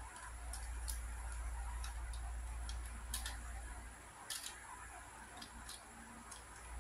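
Ju Xing keychain 3x3 plastic puzzle cube turned quickly by hand, its layers clicking irregularly as they snap into place.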